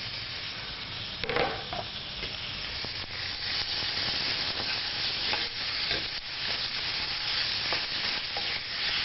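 Thin strips of beef rump steak sizzling as they sear in a very hot wok with a little oil, while a spatula scrapes and knocks against the wok as the meat is stirred. A brief clatter about a second in; the sizzle grows louder after a few seconds.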